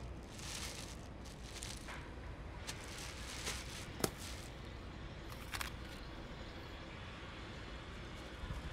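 Thin black plastic bag rustling and crinkling in several short bursts as a clear plastic takeout container is pulled out of it, with one sharp click about four seconds in. A low steady rumble of street traffic runs underneath.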